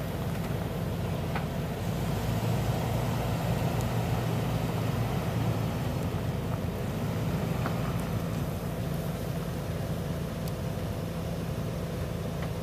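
Chevrolet 6.0L gas V8 of a pickup truck idling steadily with an even low hum.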